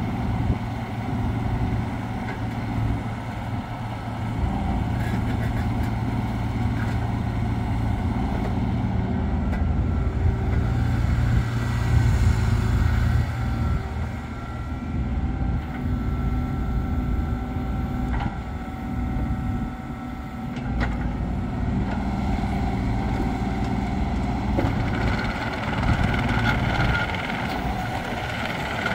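Kubota U30-5 mini excavator's diesel engine running under load as the boom, arm and bucket move and the upper structure swings, with a higher hydraulic whine that shifts in pitch as the controls are worked. A few short knocks come from the working machine.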